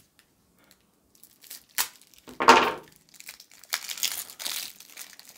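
Plastic shrink wrap being torn and crinkled off a deck of game cards. It starts nearly quiet, with a sharp click and a louder short rip about halfway in, then steady crinkling of the plastic through the second half.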